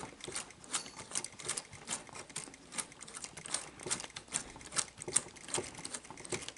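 Plastic gears of a Sony SL-HF450 Betamax deck's tape-loading mechanism clicking as it is turned by hand, several irregular small clicks a second. The mechanism is running the threading in reverse, unloading the tape from around the head drum.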